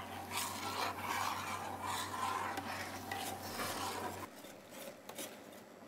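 A spoon stirring thick sauce in a large stainless steel stockpot, scraping around the pot in irregular repeated strokes. About four seconds in the sound drops away to a few faint scrapes.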